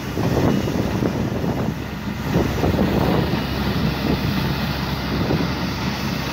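Sweeper-loader working the kerb: its engine hums steadily under a dense noise of brushes and conveyor sweeping up dry grit and carrying it into a dump truck. The grit is swept dry, without wetting. Wind buffets the microphone.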